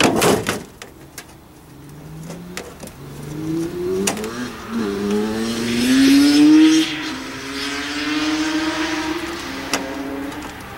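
A motor vehicle's engine accelerating through its gears, the pitch climbing and dropping back at each shift, growing louder toward the middle and then holding a steadier note as it eases off. A sharp knock at the very start, and a couple of lighter knocks later.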